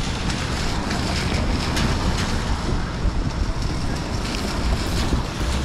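Wind buffeting the camera's microphone with a low rumble, over a steady hiss of rain, with scattered light taps throughout.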